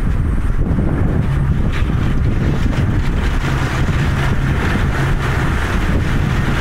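Car ferry under way: a steady low engine hum over an uneven low rumble, with wind buffeting the microphone.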